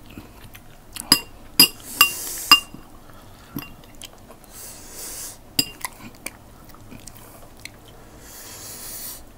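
Sharp clinks against a glass serving bowl as food is picked out of it: four quick clinks in the first three seconds and another about halfway through, each with a short ringing tone.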